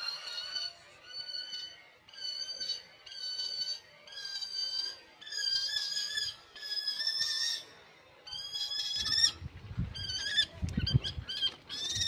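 A young falcon calling over and over, a drawn, slightly rising cry about once a second, the calls growing shorter and quicker near the end, with low thuds underneath in the last few seconds.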